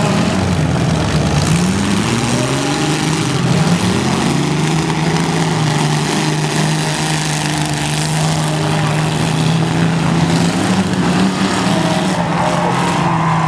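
Demolition derby cars' engines revving and running hard, their pitch climbing in several quick rises over the first couple of seconds and then holding at a steady high drone, over a dense wash of arena noise.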